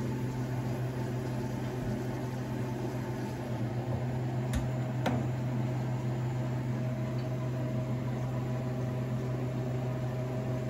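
Harvest Right freeze dryer running in its freezing stage, its refrigeration compressor giving a steady low hum. Two sharp clicks come about halfway through.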